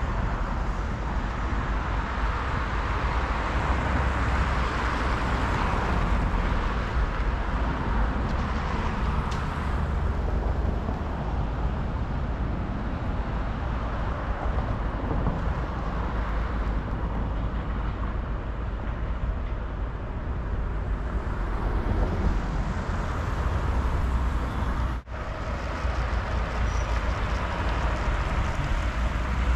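Outdoor street ambience recorded while walking: passing road traffic over a steady low rumble, with a brief break in the sound about 25 seconds in.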